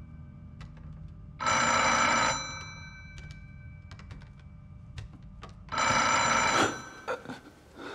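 Telephone ringing twice, each ring lasting about a second with about four seconds between them, over a low steady hum that fades away near the end.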